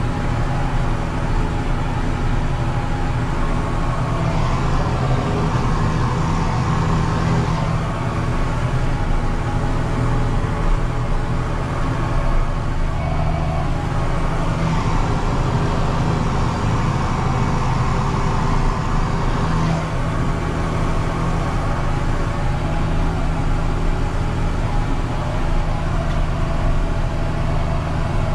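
John Deere 6930 tractor's six-cylinder diesel engine running steadily under load while pulling a cultivator. A hiss in the upper range swells twice, about five and fifteen seconds in.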